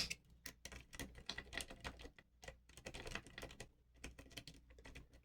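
Hook pick and tension wrench working the pins inside a pin-tumbler lock cylinder: a run of faint, irregular small metal clicks and ticks. The pins are not setting, and the lock is not giving.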